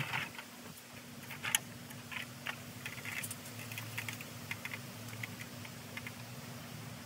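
Scattered light clicks and knocks as a man climbs a stepladder and handles his tools and bag at the top of a wooden frame, over a faint steady low hum. The sharpest knock comes about a second and a half in.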